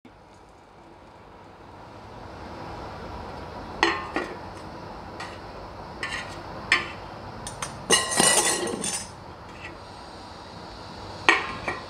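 Steel utensils clinking against a stainless steel mixing bowl, a handful of separate sharp, ringing clinks with a quick cluster of them about eight seconds in.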